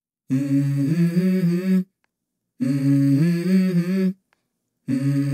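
Music: a wordless hummed melody in three phrases of about a second and a half each, with brief silences between them.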